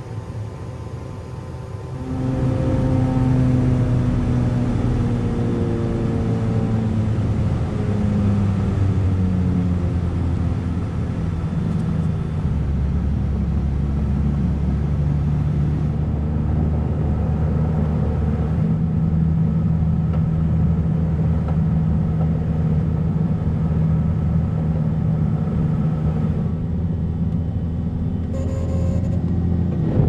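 Lake Renegade amphibian's pylon-mounted piston engine and pusher propeller droning, with wind noise. The drone gets louder about two seconds in and its pitch slides down over the next several seconds, then holds steady.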